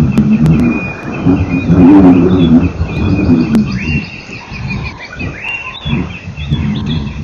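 Birds chirping and whistling, with several short rising whistles, over a louder low wavering hum that swells and fades every second or two.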